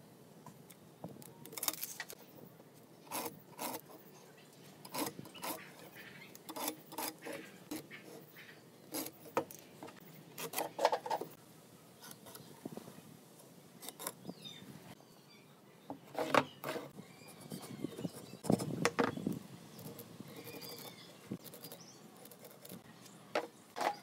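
Irregular light clicks and knocks of hand tools on wood: a tape measure, pen and steel square handled against a board on a wooden workbench while it is measured and marked. A heavier knock comes about three-quarters of the way through.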